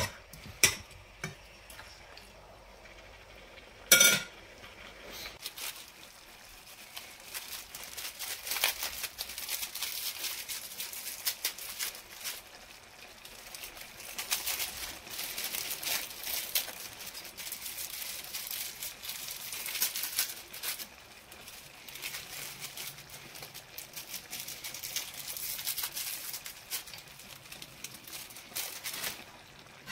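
A metal spoon knocks once against a plate with a short ring about four seconds in. Then comes a long stretch of fine crackling and rustling as small masala spice sachets are handled and shaken out over the pan.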